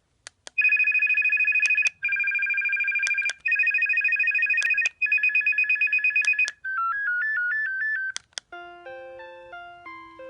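iDect Prism Plus cordless DECT phone handset playing its built-in ringtones one after another. First come four short electronic warbling trill rings, each a little different and separated by a pair of clicks. Then a short beeping tune, and after two more clicks, a slower polyphonic melody of decaying notes.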